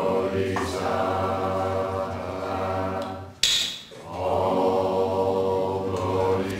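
A group of Zen practitioners chanting together on a steady pitch at a formal bowl meal. The chanting breaks off briefly about halfway through, and a short, sharp noise, louder than the voices, sounds before it resumes.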